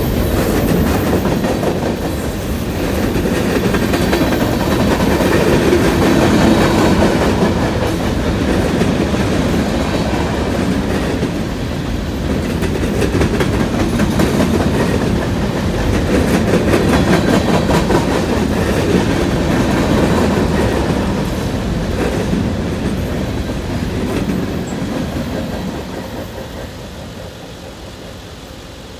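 Freight train of high-sided open-top cars rolling past close by, with steady wheel rumble and clickety-clack over the rails. The sound fades near the end as the last car passes and moves away.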